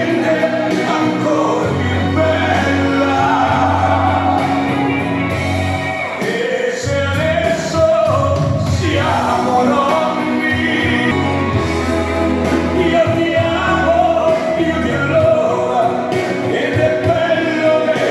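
Dance music with singing, played loud over a hall sound system.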